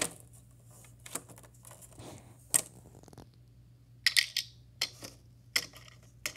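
Small plastic toys being handled: scattered light clicks and taps of plastic on plastic as a pink plastic toy box and its contents are moved, with a quick cluster of sharper clicks about four seconds in.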